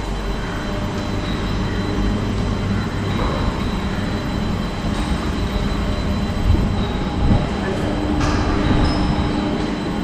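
Gondola cable car station machinery running: a steady mechanical rumble from the turning bullwheel and moving haul rope as gondolas roll through the station, with a few light clicks and a steady hum coming in near the end.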